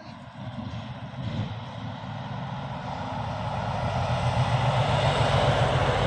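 A motor vehicle's engine passing on a road, growing steadily louder as it approaches and loudest near the end.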